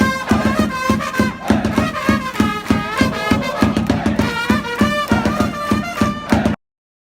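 Upbeat meme music with a fast, steady beat and a high melody. It cuts off abruptly near the end, leaving silence.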